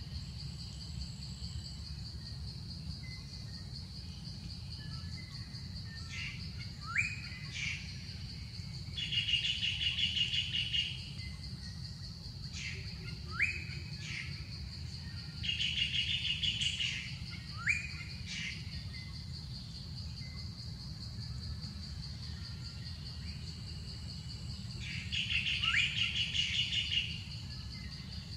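A forest bird calling over and over: a quick rising whistle, then a rapid trill of about two seconds, the pattern coming three times. Under it runs a steady high insect drone.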